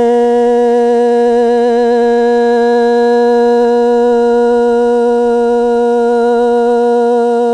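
A singer holding one long sung vowel of Hmong kwv txhiaj, unaccompanied, at a steady pitch with a slight waver.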